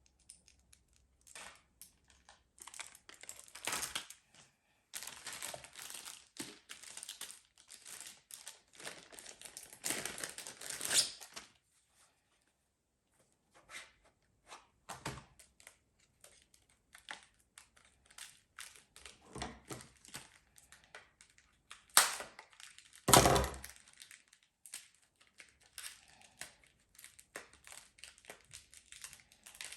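Close-up crinkling and rustling of handled material, in long stretches, then scattered light clicks and two louder knocks about a second apart, roughly two-thirds of the way through.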